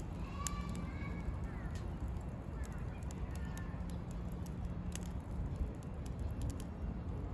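Firewood burning in a campfire, crackling with frequent sharp pops at irregular moments over a steady low rumble.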